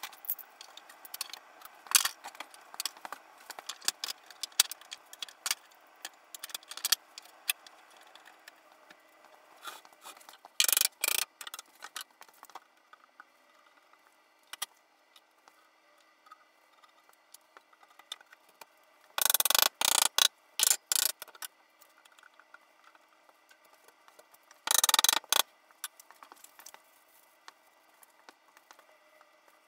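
Bar clamps being set and tightened on a spruce cabinet carcass: scattered clicks and knocks of metal clamp parts and wood. A few loud, noisy bursts of a second or two each stand out, the loudest past the middle.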